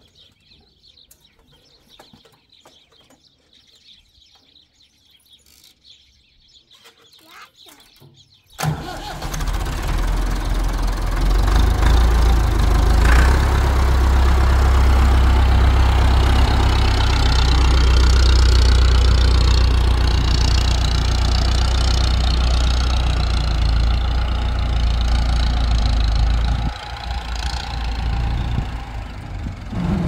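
Massey Ferguson 285 tractor's diesel engine starting suddenly after several seconds of quiet, then running steadily and loudly. It gets somewhat quieter near the end.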